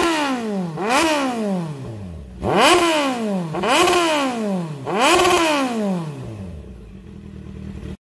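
Motorcycle engine revved in sharp throttle blips, about four times: each time the pitch shoots up and then falls away slowly as the revs drop. The sound fades out near the end.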